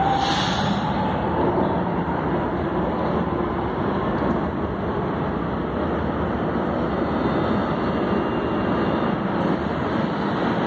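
São Paulo Metro trains in the station: a steady, even rumble. At the start a faint rising electric motor whine fades out about a second in, as a train on the far track accelerates away.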